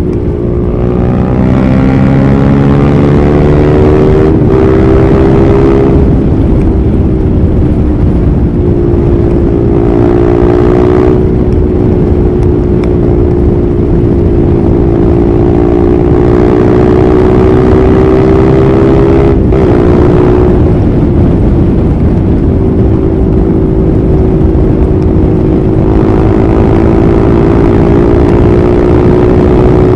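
Husqvarna Vitpilen 401's single-cylinder engine pulling under way at road speed: its pitch rises over the first couple of seconds, then holds fairly steady with small rises and falls, with brief breaks about four and nineteen seconds in.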